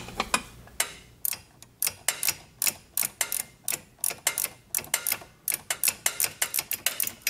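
Ratcheting wrench clicking in quick, uneven runs of about four clicks a second as it runs a nut onto a rear sway bar end link.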